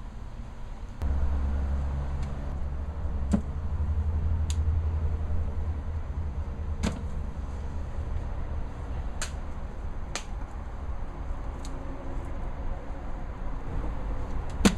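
Rummaging in a metal dumpster: sharp knocks and clicks every second or two as items inside are shifted and lifted out, over a low steady rumble that starts about a second in.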